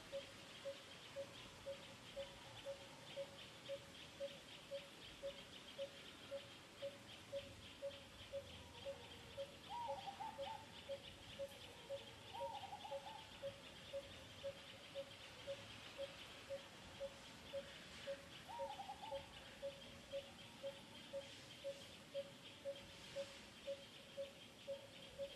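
Bird repeating one short low note at an even pace, about three notes every two seconds, over a steady fast high-pitched trill. Three short, higher calls break in about ten, twelve and eighteen seconds in.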